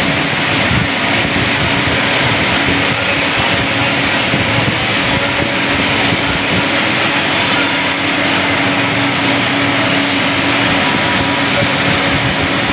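Steady, loud street noise with a continuous low hum, like traffic and engines passing.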